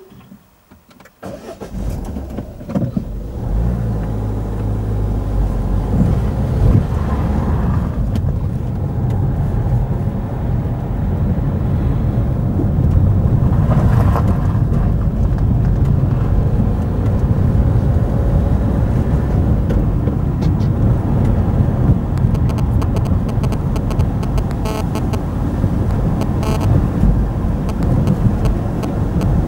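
A car pulling away and driving on: its engine and tyre noise come up about two seconds in and then run steadily.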